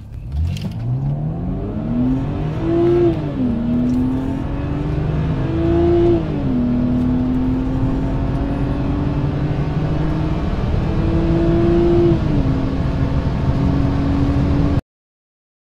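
Car engine at full throttle accelerating from a standstill: the revs climb, then fall back at each of three upshifts, and the sound cuts off suddenly near the end.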